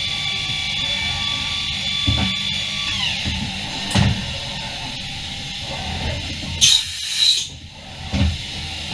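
Mazak Variaxis 630-5X II machining center running: its spindle holds a steady high whine and then spins down about three seconds in. A short loud hiss of air follows near the end, with a few dull knocks in between.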